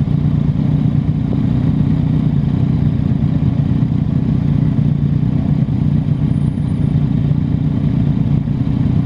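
2019 Triumph Street Scrambler's 900 cc parallel-twin engine on its stock exhaust, running steadily as the bike rides along.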